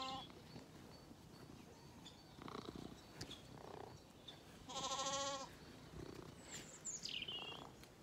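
A Zwartbles lamb bleats once about five seconds in, a single wavering call lasting under a second, with the end of another bleat right at the start.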